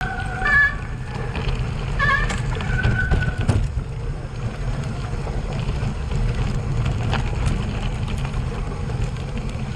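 Riding a bicycle over a rough grass-and-dirt track: a steady low rumble of wind on the microphone and tyres on the bumpy ground, with sharp rattles and knocks from the bumps. A few brief high-pitched tones sound in the first three seconds.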